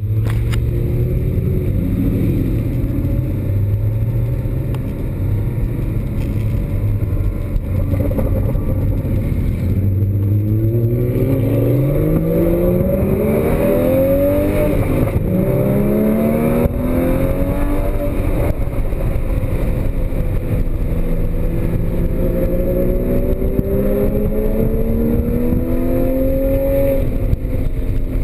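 Porsche Cayman GTS flat-six engine at speed on track: it holds a steady note for about the first ten seconds, then climbs hard under full throttle, drops back briefly near the middle and climbs again in a long pull that falls away near the end.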